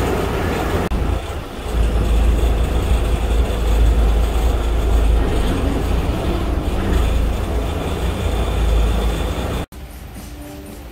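River shuttle boat running: a loud, steady low rumble of its engine with a noisy wash over it. About nine and a half seconds in it cuts off abruptly to a much quieter background.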